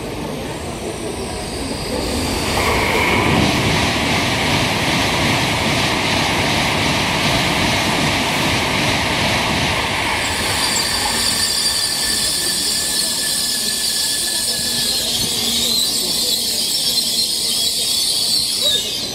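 Tokaido Shinkansen bullet train pulling into the station: a rush of wheels and air builds about two seconds in, and from about halfway a high, steady squeal of the wheels and brakes rings out as the train slows to stop.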